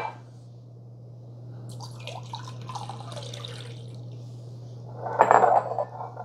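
Water poured through the spout of a Pyrex glass measuring cup into a smaller glass measuring cup, splashing for about three seconds. About five seconds in comes a brief, louder knock of glass being handled.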